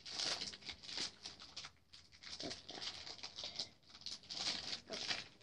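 Soft plush fabric rustling as it is handled and folded close to the microphone, coming in several swells of hiss.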